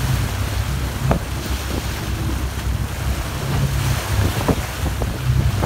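Fishing boat under way while trolling: a steady low engine hum with water rushing in the wake and wind buffeting the microphone. A few sharp clicks cut through, about a second in and twice near the end.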